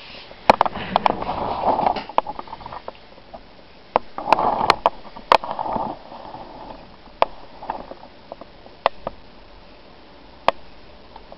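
Rubbing and rustling from a handheld camera being moved, with about a dozen short sharp clicks and knocks along the way.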